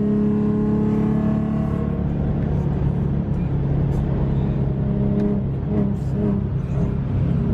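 A car engine running and accelerating, its pitch steady at times and rougher in the middle.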